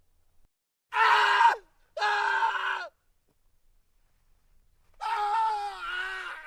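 A man screaming as if dying: a short scream about a second in, a second one just after, then a longer wavering, groaning cry from about five seconds in.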